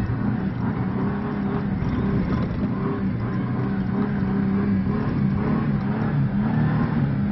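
Old Ford Ranger pickup driving, its engine a steady low drone that rises and dips a little in pitch, over road and tyre rumble.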